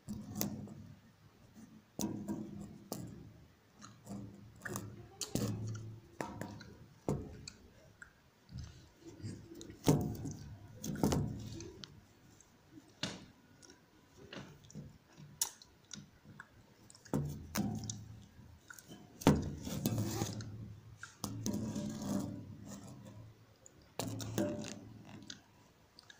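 Kitten chewing food close to the phone: irregular clicks and chewing noises in uneven bursts.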